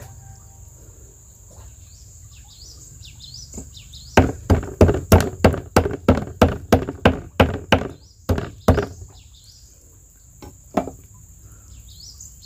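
Rapid chopping with a blade on a wooden board, about four strokes a second for some four seconds, starting about four seconds in, as chicken is cut up for cooking. A steady high insect drone and a few bird chirps run underneath, with one more knock near the end.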